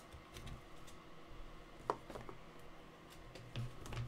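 Faint handling of trading cards and card packs: light clicks and rustles, with one sharper tick about two seconds in.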